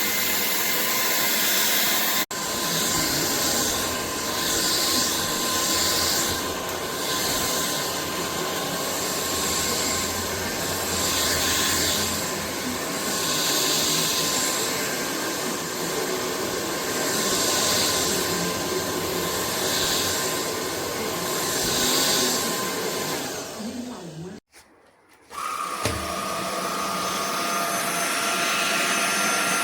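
AlloyMove cordless stick vacuum running, its suction hiss swelling and fading about every two seconds. Near the end it winds down and stops for about a second, then starts again with a higher, steadier whine.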